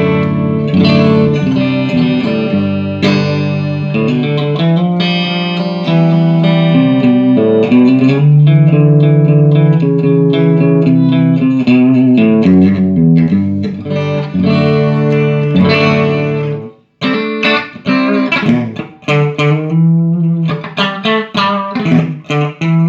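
Electric guitar played through a Fender Pro Reverb silverface valve amp, tested after a repair that included a holed speaker cone. It plays held chords and single-note lines, stops briefly about 17 seconds in, then goes on with short, choppy chords.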